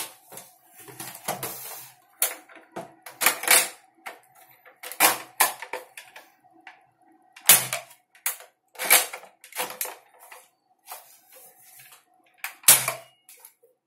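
Bolt action of a homemade airsoft sniper rifle being worked while the rifle is handled: a string of sharp mechanical clacks, about a dozen, irregularly spaced.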